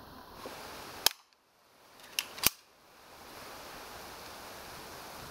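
Sharp cracks of a low-powered toy pistol shooting at cans: one about a second in, then two close together about two seconds in.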